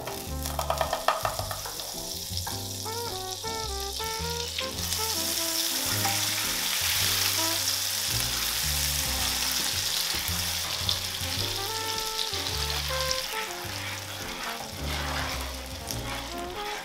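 Butter sizzling and foaming as it melts into hot caramelized sugar in a nonstick frying pan while being stirred with a wooden spatula; the sizzle grows denser and louder about five seconds in.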